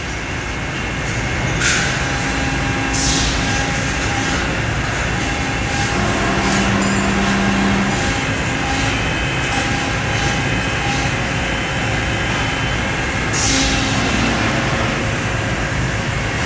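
Cincinnati 90-ton CNC press brake running: a steady mechanical rumble and hum, with three short hissing bursts.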